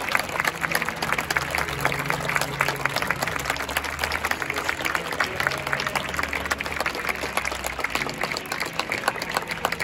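Stadium crowd applauding: many hands clapping in a steady, continuous patter.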